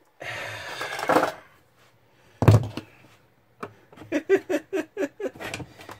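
Plastic monitor base being forced apart: about a second of scraping, creaking plastic, then one loud knock about two and a half seconds in. Near the end comes a quick run of about eight lighter claw-hammer knocks on the plastic casing, roughly four a second.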